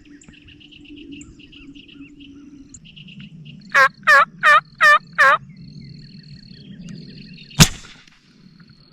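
Five loud, evenly spaced turkey yelps, then, a few seconds later, a single sharp crack from the .50 caliber air rifle firing. Small songbirds chirp before the yelps.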